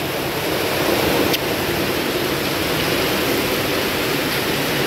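Heavy rain falling hard, a steady even rush, with water pouring off the roof edge.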